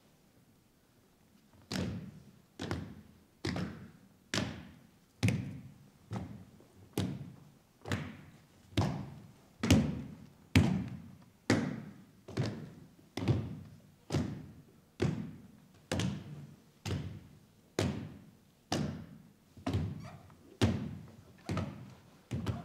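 Heavy thuds in a steady beat, a little more than one a second, starting about two seconds in, each ringing out briefly in a large hall. About two dozen strikes, louder toward the middle.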